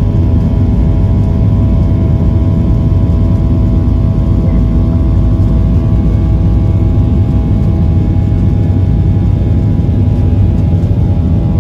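Cabin noise of a Boeing 737-800 with its CFM56 jet engines running: a loud, steady low rumble with a steady whine over it.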